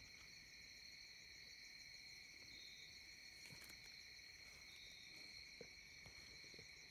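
Faint, steady high-pitched chorus of night insects, with a short chirp repeating every two to three seconds and a few faint ticks.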